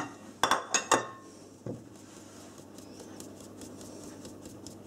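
A few sharp metallic clinks against a steel mixing bowl in the first second, then a soft, steady rustling hiss of flour being shaken and tapped through a fine wire-mesh sieve into the bowl to aerate it.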